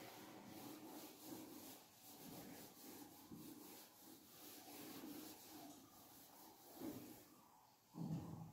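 Faint rubbing of a duster wiped across a whiteboard in repeated strokes.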